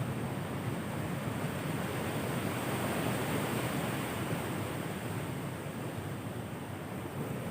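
Large ocean surf breaking and washing ashore in a steady rush, swelling a little about three seconds in and easing off near the end.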